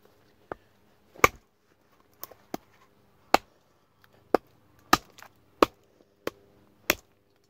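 J. Adams MOD survival knife, a large fixed-blade chopping knife, striking into a log: about eleven sharp chops on wood at an uneven pace, roughly one or two a second.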